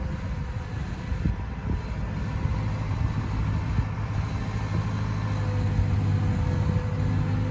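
Liebherr R924 Compact hydraulic excavator's diesel engine running steadily, with a couple of short knocks about a second and a half in; the engine gets a little louder in the second half.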